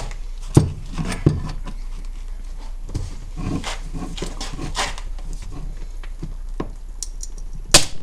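Bolt cutters worked on a link of 10 mm hardened chain: irregular metallic clicks, knocks and creaks as the jaws bite and the handles are pressed. There is one very loud sharp crack near the end, after which the jaws are thought to have slipped off the link.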